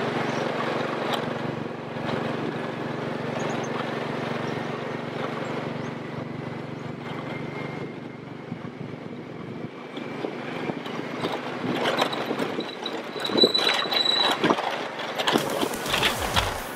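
ATV (quad bike) engine running steadily on a dirt road. The hum fades after about ten seconds, and knocks and rattles from the bumpy ride grow louder near the end.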